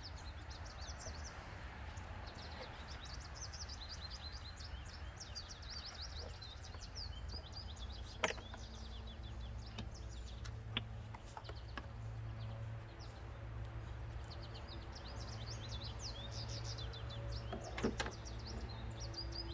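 Faint outdoor background of small birds chirping over a steady low hum, with a few sharp clicks, one about eight seconds in and another near the end.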